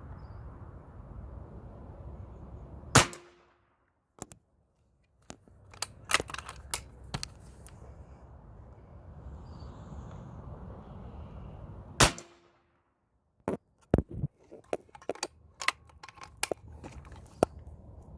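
Pre-charged pneumatic air rifle firing two shots about nine seconds apart, each a sharp crack, followed by a run of smaller metallic clicks as the action is cycled to chamber the next pellet from the rotary magazine.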